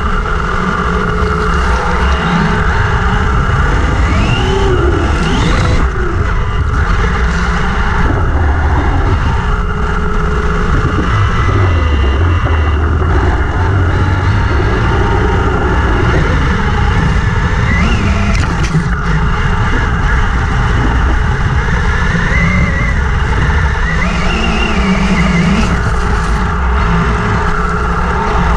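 Brushless electric motor and drivetrain of a Vaterra Twin Hammers RC buggy on paddle tyres, heard from its onboard camera while driving over sand. A whine rises and falls in pitch with the throttle, over a constant low rumble.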